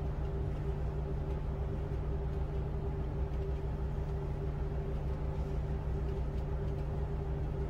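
Tugboat's diesel engine running steadily while towing a loaded coal barge: a low, even drone.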